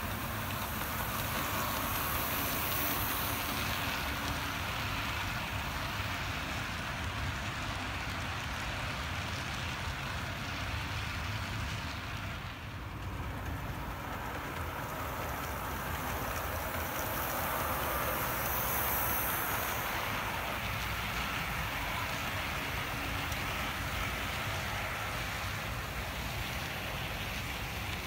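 An HO scale model diesel locomotive and train running along the track, making a steady, even running noise that dips briefly about halfway through.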